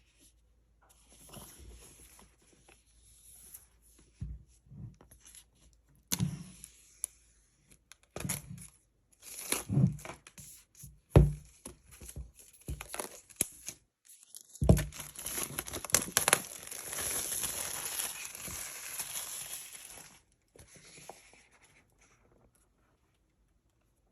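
iPad Air retail box packaging being torn open and handled: scattered crinkles and light knocks, then a longer continuous tearing sound lasting several seconds in the second half.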